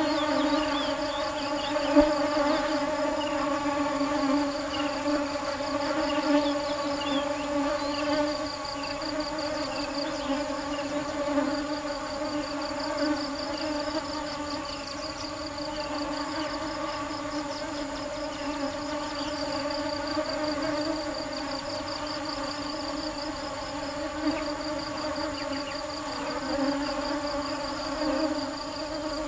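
Honeybees buzzing in a steady, continuous drone, with a high pulsing trill running above it.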